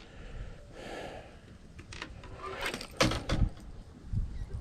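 Handling noise: soft rustling, then a few sharp knocks and clicks about three seconds in.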